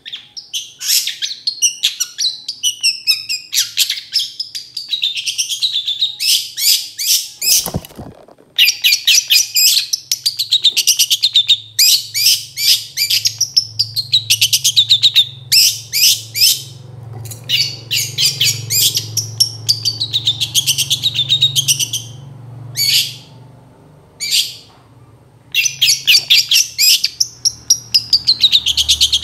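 Long-tailed shrike singing: fast rattling phrases of many short notes, broken by short pauses. A single knock about eight seconds in, and a low hum underneath from then on.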